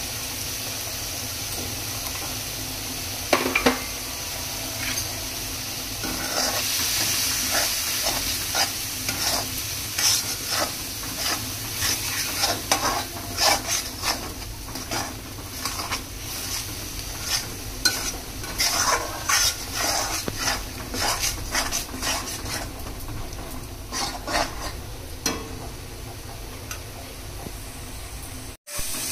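Food sizzling in a hot pan on the stove, with a steady hiss. A utensil clanks against the pan a couple of times about three seconds in, then stirs and scrapes in quick, irregular strokes.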